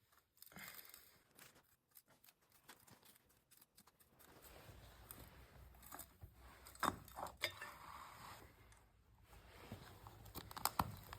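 Faint rustling and scattered light clicks and taps of things being handled, with a few louder clicks later on.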